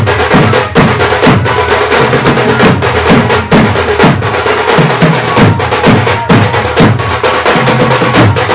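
Loud drum music: drums beating a fast, even rhythm of about three strokes a second, the low strokes bending downward in pitch, over a steady held tone.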